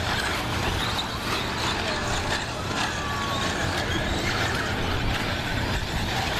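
Several radio-controlled short-course trucks racing on a dirt track, their motors whining and changing pitch as they speed up and slow down, over a steady wash of noise.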